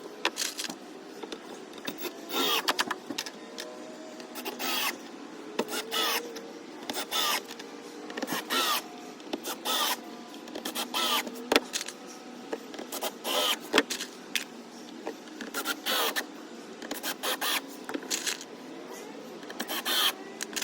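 A small electric motor whirring in short repeated bursts, about one a second, its pitch rising and falling within each burst.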